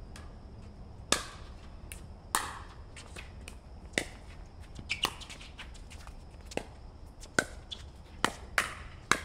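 Pickleball rally: paddles striking the hard plastic ball in sharp pops, irregularly spaced about a second apart, with some fainter taps between.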